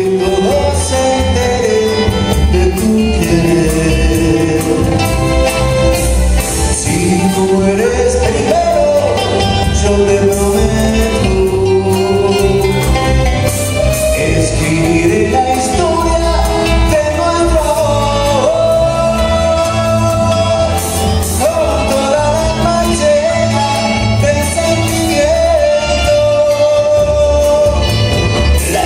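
Live band playing with a male lead singer singing into a microphone, backed by an electric guitar and a drum kit, all amplified.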